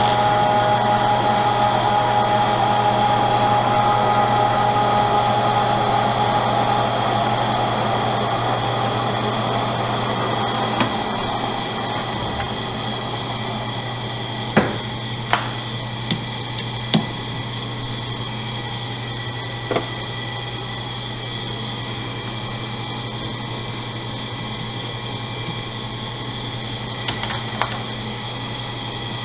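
Enco metal lathe and a three-phase rotary phase converter running with a steady electrical hum. The higher machine tones die away over the first ten seconds or so, leaving the hum, with a few sharp clicks and knocks in the second half.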